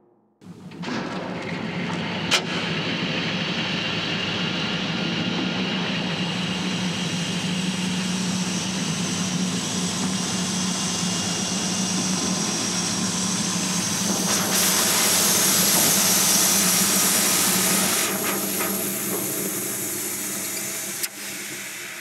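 Industrial machinery running: a steady low hum under a wide hiss, starting abruptly, with a louder rush of hiss for a few seconds past the middle and two sharp clicks.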